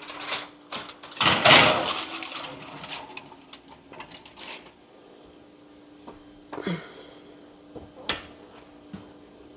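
Aluminium foil crinkling and rustling around a tray of ribs on an oven's wire rack, loudest about a second in, with clicks of the rack. Near the end come two knocks as the oven door is shut.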